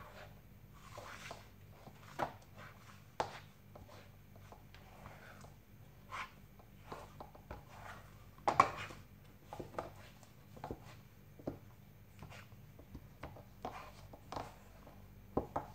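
A wooden spoon scraping and knocking in a coated saucepan as it rubs and mashes a thick barley-flour dough for genfo. The strokes come irregularly, with one louder knock a little past halfway.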